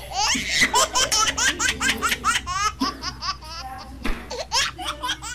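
A person laughing hard: a long run of quick, rising "ha"s for about three seconds, then a few more near the end.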